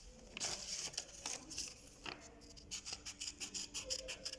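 Scissors cutting through folded sheets of colored paper, a quick irregular series of short snips.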